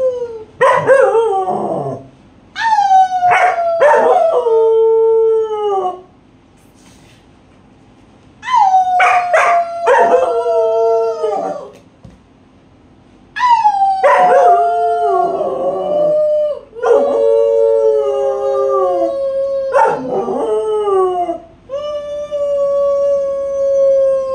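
German Shepherd dogs howling in several long bouts, each call sliding down in pitch at its end, with short pauses between bouts and two voices overlapping at times.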